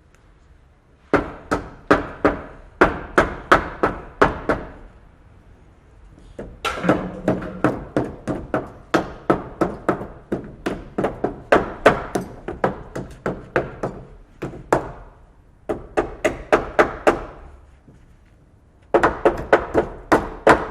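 Hammer driving nails into wood: runs of quick, evenly spaced blows, about three a second, each with a short metallic ring. The runs are broken by brief pauses, about four and six seconds in, near fifteen seconds and around seventeen to nineteen seconds.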